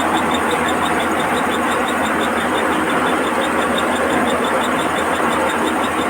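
Rice combine harvester running steadily under load, its engine and threshing machinery making a dense, even noise with a fast, regular ticking on top.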